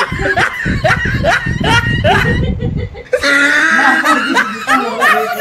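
A woman laughing in a string of short, rhythmic bursts for nearly three seconds, then a brief pause and more laughing with voices.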